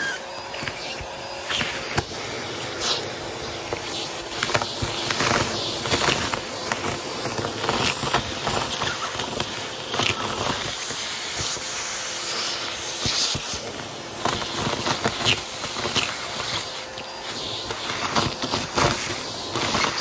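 Vacuum cleaner running with its wand in a pile of sequins, glitter and confetti on carpet: a steady rushing hiss with many quick clicks and rattles as the pieces are sucked up the tube.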